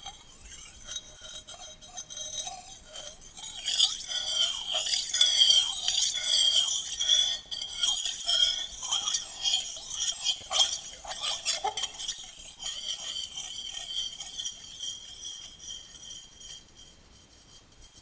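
A sound-art soundscape of glassy clinking and tinkling chimes over a steady high ringing tone. It swells about four seconds in and fades away toward the end.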